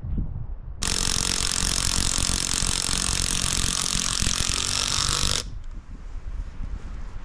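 Cordless power drill/driver running hard for about four and a half seconds, driving a screw through a wooden board into a tree trunk. It starts about a second in and stops abruptly.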